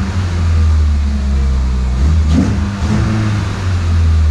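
Toyota Celica's four-cylinder engine, fitted with a short ram intake and aftermarket exhaust, running at idle with a brief rise in revs about two and a half seconds in.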